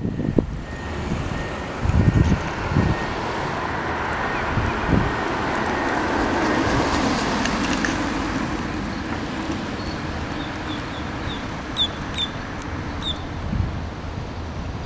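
2003 Jaguar XK8's 4.2-litre V8 and tyres as the car drives past: the sound swells as it approaches, is loudest about seven seconds in, then fades as it pulls away. Wind buffets the microphone about two seconds in.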